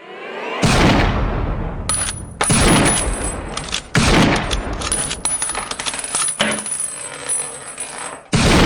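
Intro sound effects: a rising whoosh, then a series of heavy booming hits, each dying away over a second or so, with a thin high tone ringing behind them.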